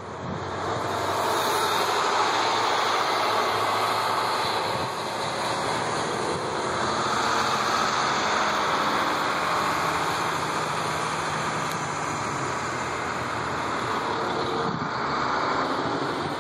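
Several school buses driving off one after another, their engines running as they pull away, the sound swelling and easing as each bus goes by.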